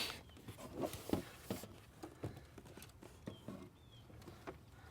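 Irregular knocks and clicks of a car's glove compartment being handled and fitted back into the dashboard. The louder knocks come in the first second and a half, then fainter ticks.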